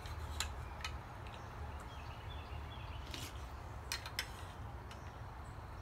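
A spoon clinking and scraping against the aluminium bowl of a Soviet army mess kit while eating: a handful of sharp, irregular clinks.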